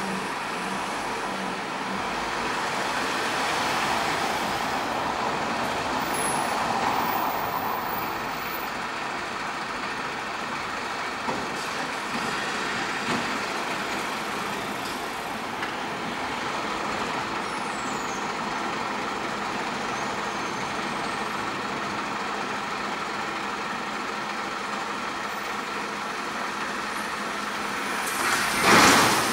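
Slow city street traffic: engines of a truck and vans running as they creep past, over the general hum of the street. Near the end there is a short, loud burst of noise.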